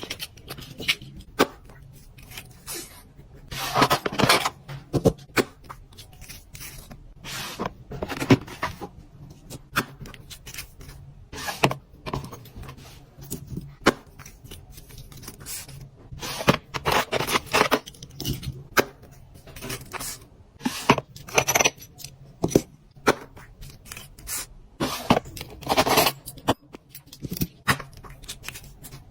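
Fingernails tapping fast and scratching on packaging, in quick irregular flurries of clicks, with several longer bursts of scraping or tearing as the package is handled and opened.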